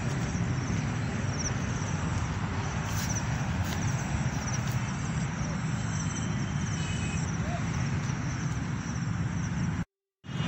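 Steady outdoor background noise, a low rumble with a haze over it, with faint repeated high chirps throughout; the sound cuts out for a moment near the end.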